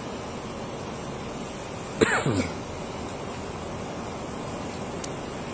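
Steady background hiss with one short vocal sound from a person about two seconds in, falling steeply in pitch over half a second.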